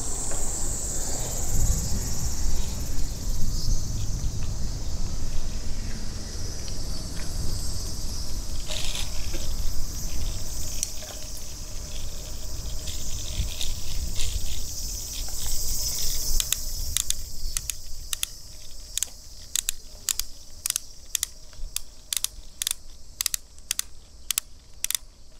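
Cicadas buzzing in summer trees, over low wind and riding rumble on the microphone. About two-thirds of the way through the rumble fades, and a run of sharp, evenly spaced clicks begins, about two or three a second.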